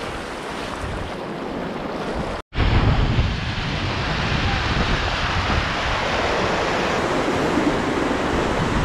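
Rushing whitewater of river rapids around a canoe running them. It breaks off suddenly about two and a half seconds in, then comes back as the louder, steady rush of a Class II+ rapid, with wind on the microphone.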